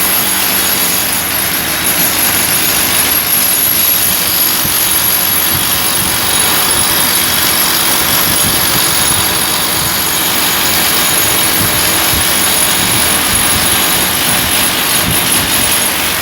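Electric hammer drill chiselling into concrete, running steadily and loud, with a thin high whine on top of the hammering noise.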